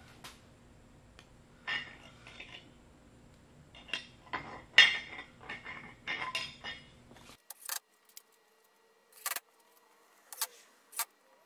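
Light metallic clinks and rattles as a metal camper trim strip is handled and pressed onto an edge. About seven seconds in, the background hiss drops away suddenly, and a few separate sharp clicks follow as a cordless drill is worked on the trim.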